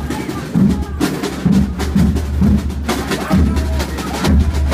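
Background music with drums and percussion keeping a steady beat over a bass line.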